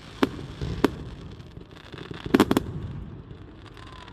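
Fireworks going off: single sharp bangs in the first second, then a quick cluster of three or four bangs about two and a half seconds in, over a low rumble.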